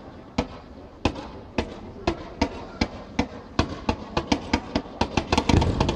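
Fireworks going off: a string of sharp bangs a few per second that comes faster near the end, closing into a rapid volley of reports.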